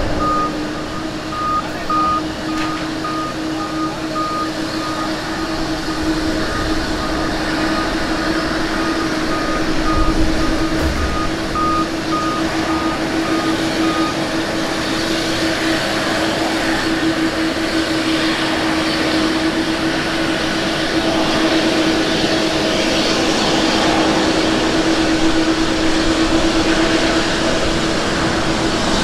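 Jet engine noise of a Boeing 777-200ER coming in to land and rolling out on the runway: a steady rushing sound with a low hum, growing slowly louder. A repeated short high beep sounds through the first half and then stops.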